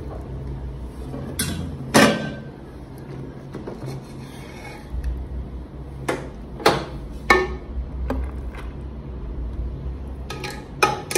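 A serving spoon clinking and scraping against the biryani pot as the cooked rice is dished out: several sharp clinks spread out, the loudest about two seconds in, over a low steady hum.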